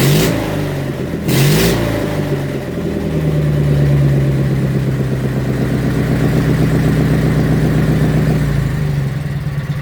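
Kohler Magnum 18 opposed-twin mower engine running with its muffler cut off, so the exhaust is unmuffled. The throttle is blipped twice in quick succession, then held at a steady higher speed for several seconds, and near the end the engine drops back to a loping idle.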